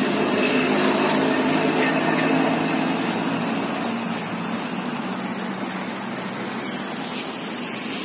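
Steady city traffic noise, with a vehicle's engine hum that is strongest in the first few seconds and then fades. A couple of faint, short high chirps come near the end.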